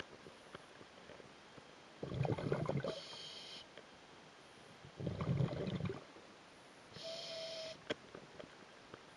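Scuba diver breathing through a regulator underwater. Bubbly exhalations come at about two and five seconds in, and hissing inhalations through the demand valve come just after three seconds and at about seven seconds, the second with a thin whistle.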